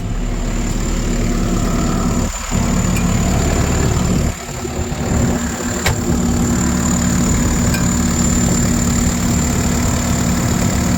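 Diesel engine of a Case machine idling steadily, with a thin high whine running over it. The sound briefly drops and shifts about two seconds in and again about four and a half seconds in, and there is a single click about six seconds in.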